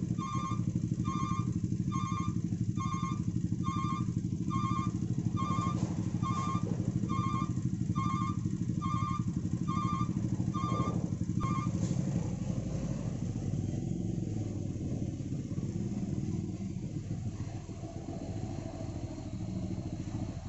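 Motorcycle and truck engines idling in stalled traffic, a steady dense hum, with a repeated electronic double beep about once a second that stops about halfway through. After that a deeper engine rumble comes in as the traffic starts to move.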